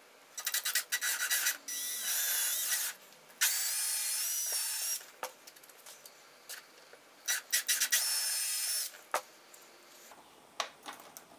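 A drill bit boring into the end of a hardwood dowel, in two runs: one starting about half a second in and lasting about four seconds, a shorter one a little past the middle, each beginning with rapid ticking before a steady whine. It is drilling the hole for the wood screw that holds the dowel handle in place.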